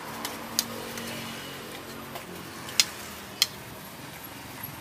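A motor vehicle's engine hums steadily and fades over the first two seconds or so. Three sharp clicks cut through it, one about half a second in and two close together near three seconds.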